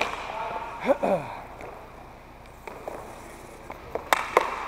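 Inline hockey faceoff: several sharp clacks of sticks on the puck and sport-court floor near the end, after a brief shout about a second in.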